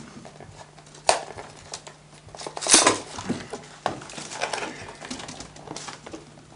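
Chestnut splints being handled and woven into a basket: irregular rustles, scrapes and sharp clicks of wood on wood, the loudest a scrape about three seconds in.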